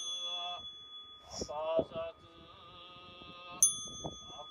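Japanese Buddhist priests chanting a sutra in unison, with a small bell ringing on. The bell is struck again about three and a half seconds in.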